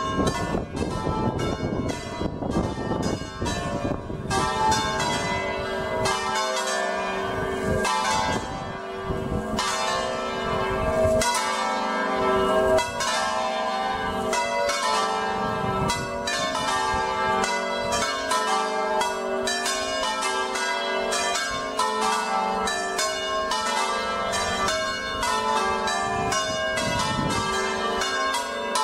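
A peal of five church bells tuned G3, A3, B3, C4 and D4, swung by electric motors in the Veronese style and ringing together in a full plenum, their strikes overlapping rapidly. Wind buffets the microphone for the first few seconds and again in gusts until about eleven seconds in.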